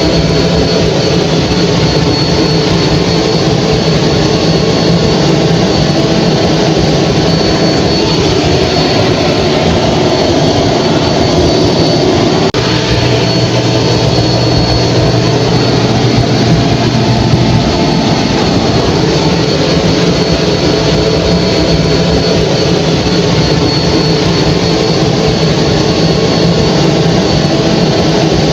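Hair dryer running steadily: an even blowing rush with a thin, steady high whine over it. A low hum shifts lower for a few seconds near the middle.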